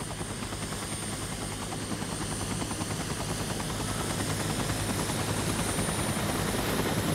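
Mil Mi-8-type transport helicopter's rotors beating steadily as it climbs overhead, growing gradually louder.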